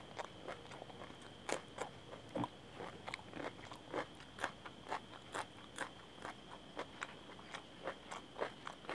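Close-miked chewing of crunchy food, raw green chillies and fried piyaju fritters, with crisp crunches about three a second.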